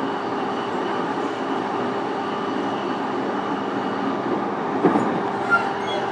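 Inside a JR East E233 series electric train's motor car (MoHa E233-1425) while it runs between stations: a steady hum with wheel-on-rail noise, and a couple of short knocks about five seconds in.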